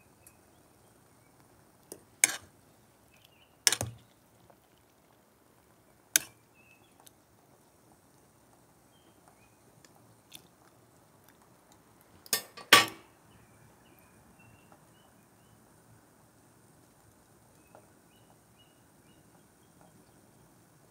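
A metal utensil knocking against a small metal cooking pot while stirring shoots in boiling water: about five sharp clacks spread out, the last two in quick succession about twelve seconds in. The clacks are the loudest sound.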